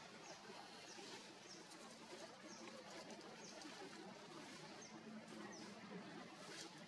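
Faint outdoor ambience: a small bird giving short, high chirps that drop in pitch, scattered about once a second, over a quiet hiss.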